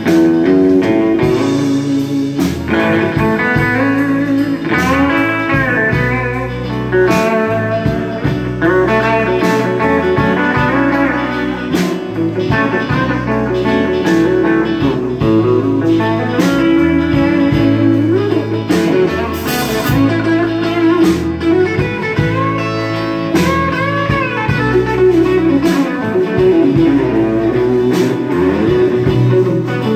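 Live blues band playing an instrumental passage: an electric guitar lead with bent notes over electric bass and a drum kit.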